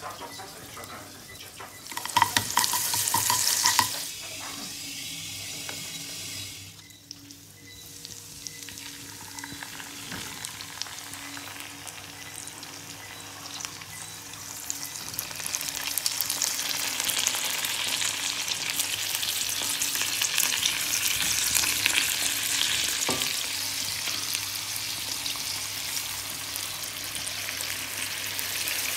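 Lionfish fillets and garlic frying in butter in a non-stick pan, sizzling and crackling, the sizzle building and growing louder through the second half. A short loud burst about two seconds in.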